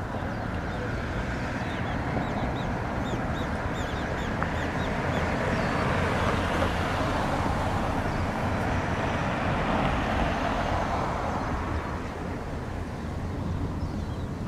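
Large crude oil tanker passing close by: a low steady engine drone under the rush of its bow wave, which swells toward the middle and eases off near the end. Small birds chirp in the first few seconds.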